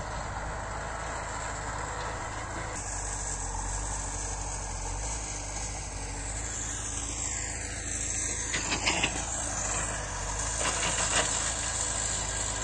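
Hydraulic excavator's diesel engine running steadily, with a few short knocks in the second half.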